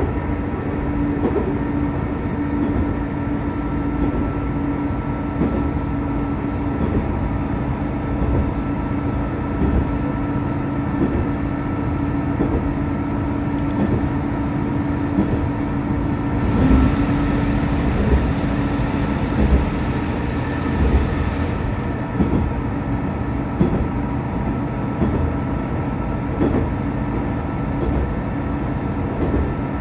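Tosa Kuroshio Railway 8000-series diesel railcar running along the line, heard from inside: a steady engine and running drone with a low hum and occasional knocks from the wheels on the rails. A brighter hiss joins for about five seconds midway.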